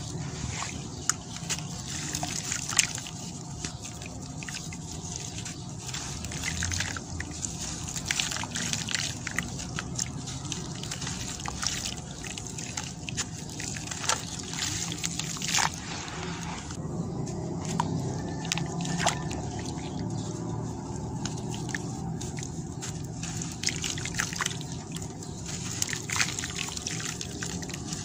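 Wet sand-and-cement chunks being squeezed and crumbled by hand in a basin of water, with water sloshing and trickling. Many small sharp crackles sound as the pieces break apart.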